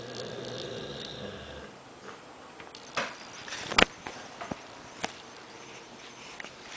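Sleeping dog snoring and snuffling through a bad dream: a drawn-out snore for the first second and a half, then a few short, sharp nasal noises, the loudest just before four seconds in and another about five seconds in.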